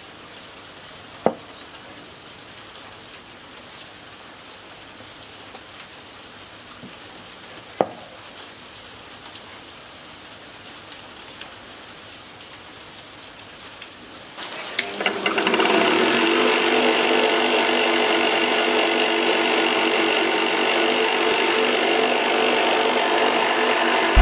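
Quiet hand-tool work with two sharp taps. About fifteen seconds in, a power tool starts up and runs steadily and loudly, a noisy whirr with several steady tones.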